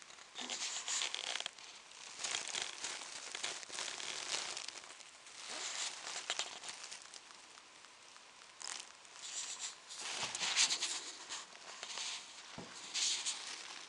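Pet mouse rummaging in its nest, rustling and crinkling the tissue paper and wood-shaving bedding in irregular bouts of a second or two.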